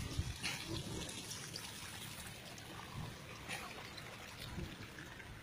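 Faint trickling water, with a few soft ticks.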